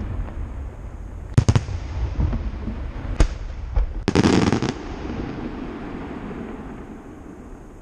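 Aerial fireworks bursting: sharp bangs about a second and a half in and again near three seconds, then a dense run of crackling around four seconds, over a continuous low rumble that fades toward the end.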